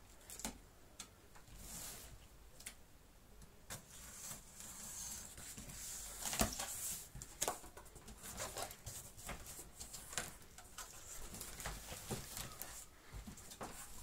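Cardboard box of a vacuum cleaner being cut open and its flaps pulled back by hand: irregular scraping and rustling of cardboard with sharp clicks and knocks, loudest about six seconds in.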